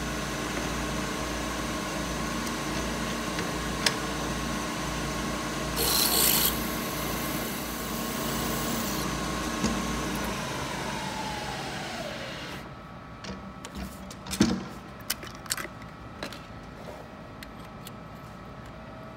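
Hafco BM-63VE milling machine spindle running while a drill bores into a hardened lathe chuck jaw, with a short loud rasp about six seconds in. Around ten to twelve seconds in the spindle is switched off and winds down with a falling whine. After that come scattered metallic clicks and knocks as tools are handled and a tap wrench is set up.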